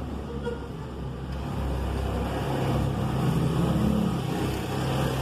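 Low engine rumble of a motor vehicle, growing steadily louder.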